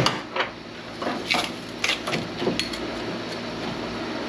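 Scattered metal clanks and knocks of heavy scrap ballast transformers being handled and set on a hydraulic press, the sharpest right at the start, over a steady machine hum.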